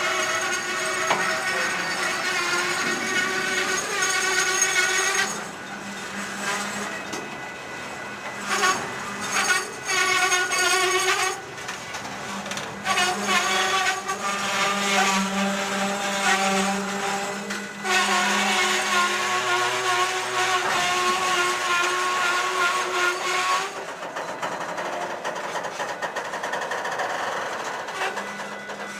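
Steel railcar wheels squealing against the rail as the train is shoved slowly: a wavering, high pitched screech that stops and starts again every few seconds, over a low steady hum.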